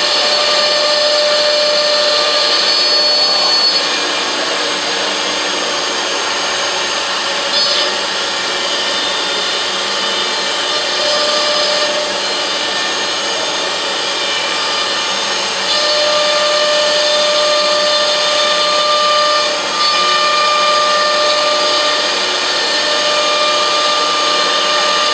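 CNC router spindles running and machining, a continuous mechanical noise with a steady whine, shifting in loudness every few seconds as the cut changes.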